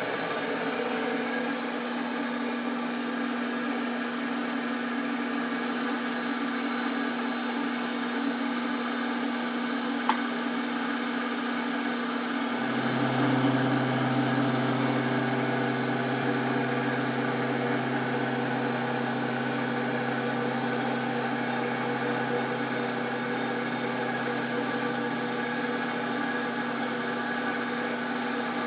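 Grizzly milling machine running with a steady hum while milling a steel plate with an end mill. A deeper hum joins in a little under halfway through and holds, and there is a single sharp click shortly before it.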